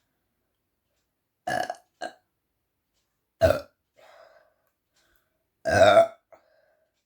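A woman burping three times, the gas coming from a carbonated apple drink she has gulped. The first burp is followed by a short second one, and the last burp, about six seconds in, is the longest.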